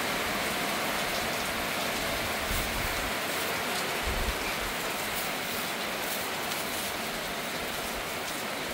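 Heavy rain falling, a steady even rush without a break.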